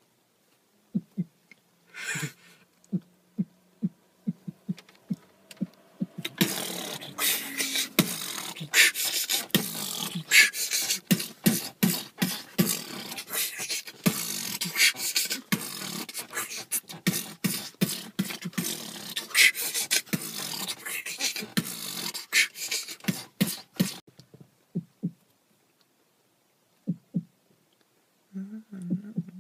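A person beatboxing, vocal percussion made with the mouth. It starts as sparse low thumps, then about six seconds in becomes a dense, fast pattern of clicks and hissing snares lasting nearly twenty seconds, then stops abruptly and leaves only a few scattered beats.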